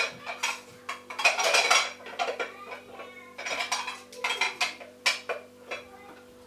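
Glass kitchenware clinking against each other and the box as pieces are unpacked, with a few short rustles of plastic wrapping. A faint steady hum runs underneath.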